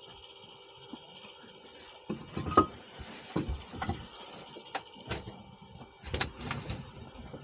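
Irregular knocks and clatter as a person climbs into a small truck-bed camper and kneels, handling wooden things on the floor, starting about two seconds in. The loudest knock comes soon after. A faint steady hum runs underneath.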